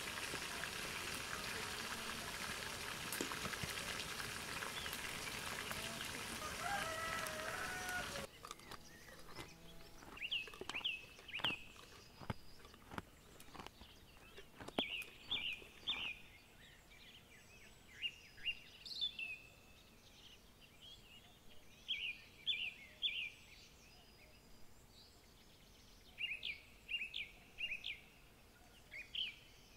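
A steady rushing noise with hens calling over it; about eight seconds in it stops abruptly. After that, in a quieter background, small birds sing in repeated groups of two or three short high notes, with a few sharp clicks early on.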